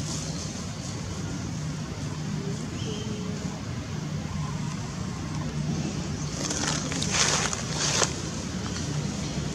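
Steady low motor hum, like distant engine noise, with a short burst of rustling hiss about seven seconds in.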